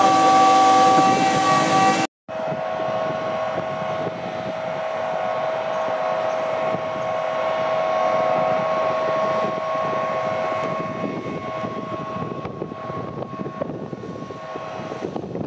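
Liquid oxygen loading into a cryogenic tanker trailer: a steady rushing hiss of venting and flow with a constant machine hum under it. A brief break to silence about two seconds in, after which it carries on a little quieter.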